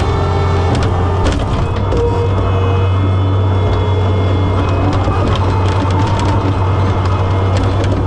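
John Deere 675B skid steer's diesel engine running steadily under load, with scattered cracks and crunches over the drone.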